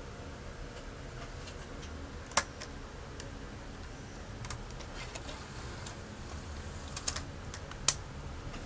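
Plastic clicks and snaps from handling a GT Sound GTX 1000 car DVD head unit as its flip-down front panel is opened and shut, a few separate clicks with the sharpest near the end. A faint high whine runs for about two seconds in the middle.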